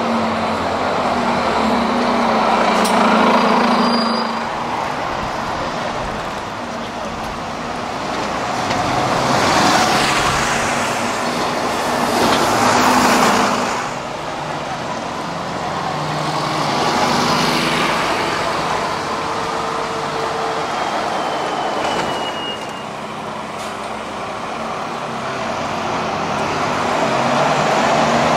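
Town-centre street traffic dominated by double-decker buses: bus engines running as buses pull in, wait and move off along the street. The sound swells several times as a bus passes close by.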